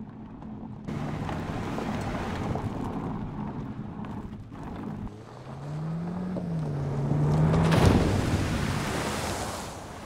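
Mercedes-Benz C-Class All-Terrain driving off-road, with engine and tyre noise on loose ground and the engine note rising and falling. About eight seconds in comes the loudest part, a rushing splash as the car drives hard through water.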